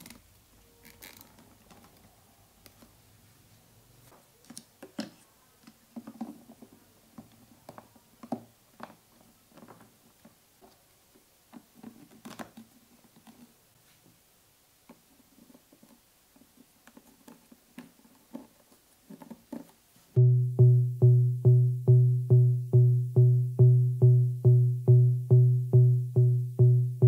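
Light clicks and taps of plastic figure parts being handled and fitted into place, including translucent lightning-effect pieces on the figure's base. About 20 seconds in, much louder music with a steady pulsing beat, about three pulses a second, starts suddenly.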